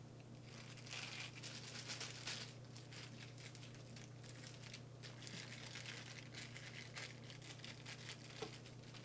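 Clear plastic packaging bag crinkling as it is handled and pulled open, a faint, irregular run of crinkles and rustles.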